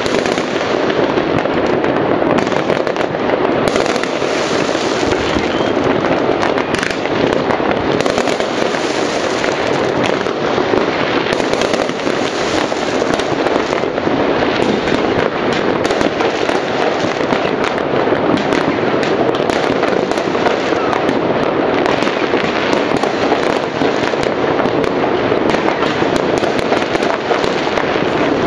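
Many fireworks going off across the area at once: a dense, unbroken barrage of overlapping bangs and crackles with no pause.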